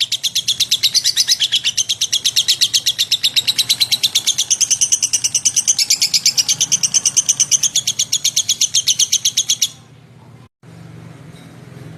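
Lovebird (Agapornis) singing a long, fast, even run of high chirps, about nine a second, that stops abruptly near the end, leaving only a faint low hum.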